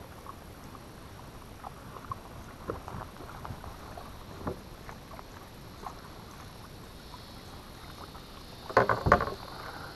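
Small waves lapping and slapping against a plastic kayak hull, with scattered light knocks and a couple of louder knocks about nine seconds in.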